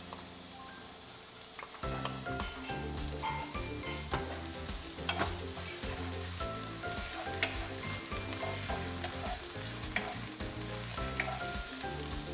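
Diced onion sizzling in hot olive oil in a frying pan, stirred and scraped around with a wooden spatula. Instrumental background music runs underneath, louder from about two seconds in.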